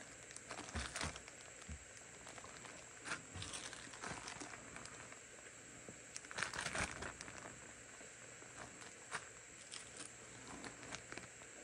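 Thin clear plastic zip-top bags crinkling as soft plastic grub baits are handled inside them. The crinkles come in short scattered spells, the loudest a little past the middle.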